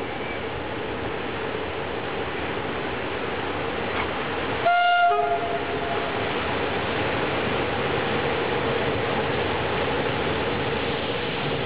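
A Romanian CFR Class 40 (LE 5100) electric locomotive approaching with a freight train, its running noise growing steadily louder as it nears. About five seconds in it gives one short horn blast.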